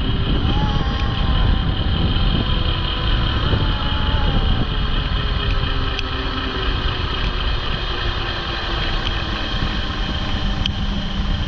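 Wind rushing over the microphone of a moving e-bike, with a thin electric-motor whine that slowly falls in pitch through the middle.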